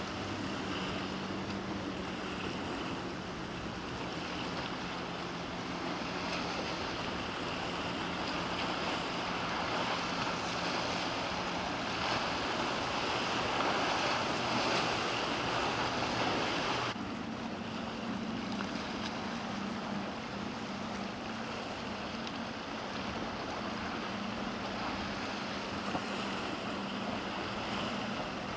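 Boat engines droning steadily over surf and wind buffeting the microphone. The mix grows louder toward the middle, then changes abruptly about two-thirds of the way through.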